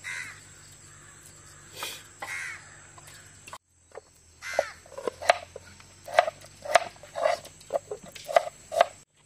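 Crows cawing: a few calls in the first three seconds, then a quicker run of louder caws, about two a second, through the second half.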